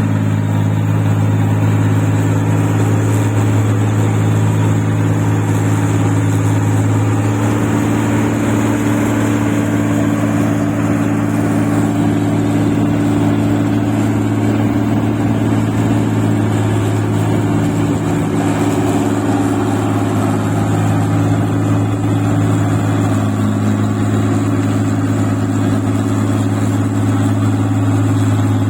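Engine of a rice-paddy machine running steadily, with its pitch shifting slightly from time to time as the load changes.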